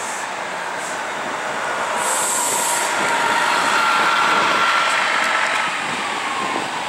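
Bombardier Flexity Outlook streetcar rolling closer on its rails, getting louder until about four seconds in and then easing, with a faint whine that slowly falls in pitch. A short hiss sounds about two seconds in.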